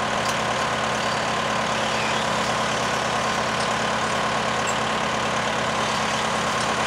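An engine running steadily at an even speed: a constant hum with a steady higher tone above it.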